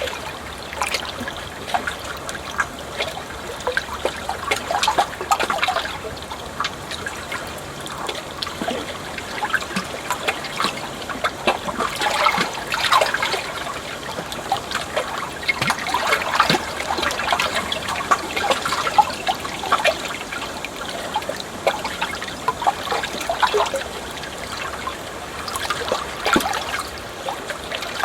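Running water trickling and splashing in a steady stream of small, irregular splashes.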